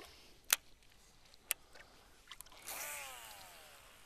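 Two sharp knocks about a second apart, then a splash-like rush with a falling whine that fades over about a second, as a hooked largemouth bass is brought to the side of a bass boat.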